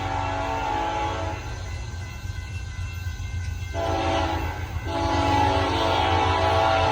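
Nathan Airchime K5HLA five-chime locomotive horn sounding its chord: a blast fades out just after the start, and after a pause comes a short blast about four seconds in, then a longer blast from about five seconds in. A steady low rumble runs underneath.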